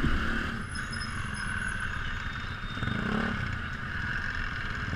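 Keeway Cafe Racer 152 motorcycle's single-cylinder engine running steadily under the rider while riding.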